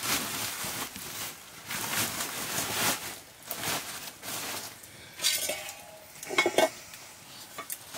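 A woven plastic sack being pulled open and handled, rustling in repeated strokes, then a few sharp metal clinks of a metal plate or pot a little after the middle.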